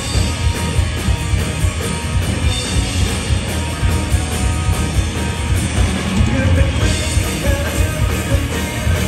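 Punk rock band playing loud and fast live: distorted electric guitars, bass and pounding drums, heard from within the audience.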